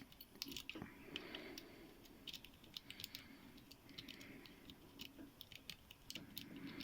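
Faint, irregular clicking and scraping of a lock pick being rocked in the keyway of a Qualtec padlock, the pins ticking against it.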